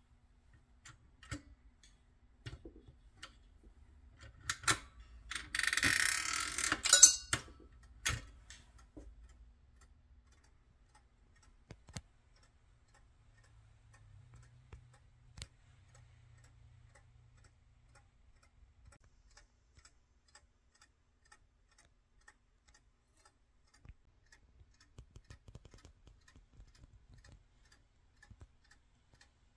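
Restored 1960s Duncan parking meter being worked: a few seconds in, a burst of metal clicking and rasping from the coin and handle mechanism, ending in a sharp click. After that comes faint, sparse ticking from its clockwork timer.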